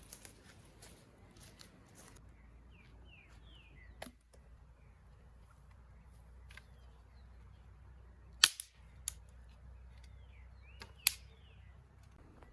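A few sharp cracks or snaps over a low background: a small one about four seconds in, the loudest about eight and a half seconds in with a smaller one just after, and another near the end. Faint short chirps come in twice.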